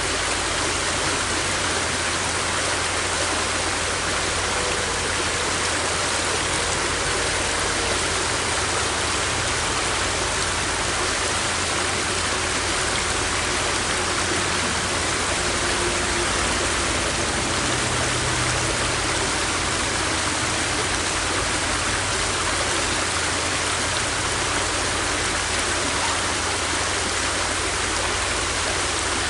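River water rushing steadily over rocks, a continuous even roar of flowing water.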